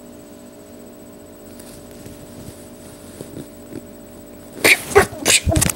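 A steady low hum, then about four and a half seconds in a burst of loud, sharp scuffling and grunting noises from a staged fight between hand puppets.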